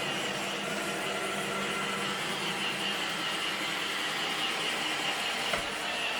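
Roomba 650 robot vacuum running steadily: a motor hum with a high whine, and a small knock about 5.5 seconds in.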